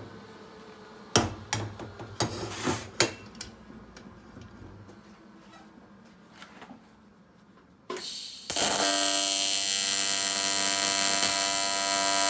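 A few clicks and taps, then about eight seconds in an AC TIG welding arc strikes on aluminum pipe and buzzes steadily and loudly to the end, laying a tack weld with filler rod.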